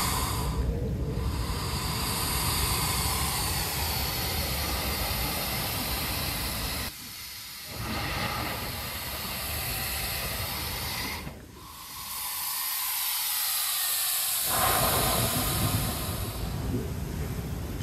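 Sea blowhole in lava rock hissing as surging waves force air and spray out through it, with the rush of surf. The rush drops away sharply twice, briefly about seven seconds in and for about three seconds past the eleven-second mark.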